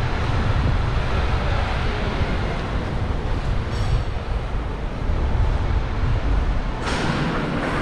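Steady low rumble of vehicle traffic, with a brief faint high squeal about four seconds in and a sudden hiss near the end.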